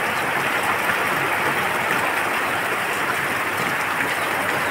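Heavy rain pouring down, a steady, even hiss of downpour that does not let up.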